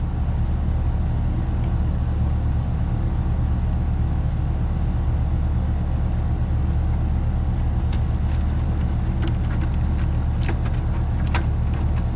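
Air-conditioner condensing unit running with a steady low hum. Light clicks and taps of hand work on the unit come in from about eight seconds in.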